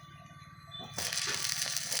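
Stick (rod) arc welding: the arc's loud, even crackling hiss is off at first and strikes up again about a second in, over a steady low hum.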